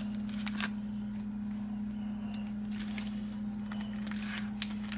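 A steady low hum with a few faint clicks and rustles as a plastic bag of tilapia fillets and a kitchen knife are handled.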